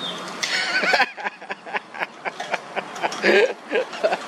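Homemade pedal drive built from an angle grinder's gearbox, turned by foot pedals through a chain and sprocket, clicking in a rapid series as it spins.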